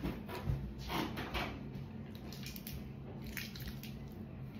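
Soft squishing handling noises of slime being worked by hand: a few in the first second and a half and one more about three seconds in, over a low steady hum.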